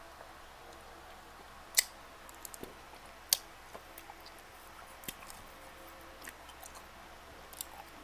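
A person chewing food with their mouth open, with scattered wet mouth clicks and smacks. Two louder sharp smacks come about two and three and a half seconds in.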